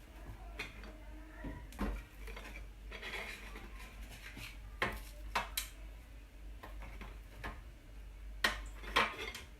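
Kitchen clatter as petit beurre biscuits are laid into a cake mould: light taps and clinks of the dish and utensils, with a few sharper knocks, most of them near the end.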